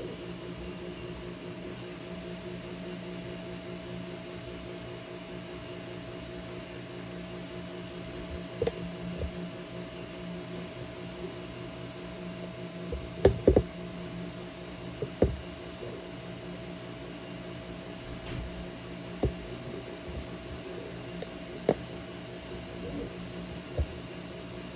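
3D printers running (an Elegoo Neptune and a Creality Ender 3): a steady mechanical hum from their cooling fans and motors, holding several fixed tones. A few short sharp knocks break in, the loudest a quick cluster about 13 seconds in.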